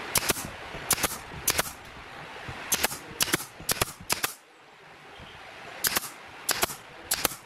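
Pneumatic nail gun firing nails into pine boards: about ten sharp shots, each a quick double crack, in irregular clusters with a pause of a second or so in the middle.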